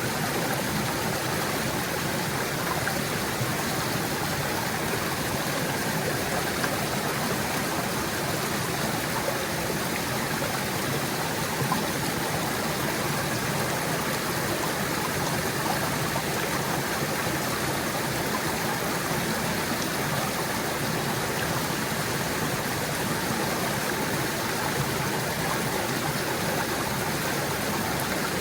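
Small stream gurgling and splashing over rocks, a steady rush of running water.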